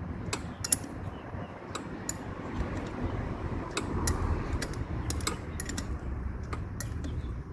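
Scattered light metallic clicks and taps of small metal parts being handled while engine studs are threaded in by hand, over a steady low background hum.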